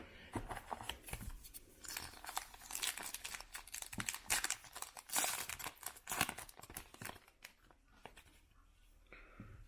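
Foil wrapper of a trading-card pack being torn open and crinkled: a rapid run of crackles that dies down after about seven seconds.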